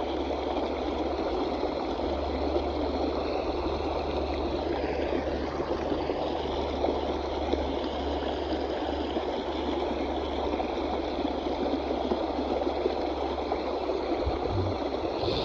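A small trout river flowing: a steady, even rush of running water.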